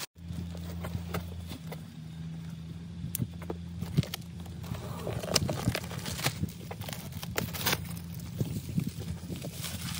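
Cardboard box being handled and a plastic bag rustling, in scattered clicks and knocks, over a steady low hum.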